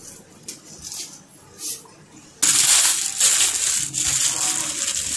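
Sheet of butter paper crinkling and crackling as hands fold it around a rolled paratha; the crackle starts suddenly about halfway through and keeps going with small pauses.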